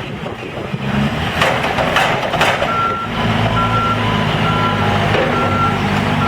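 A heavy vehicle's backup alarm beeping steadily, about once a second, over the diesel engine running. A few sharp knocks come before the beeping starts.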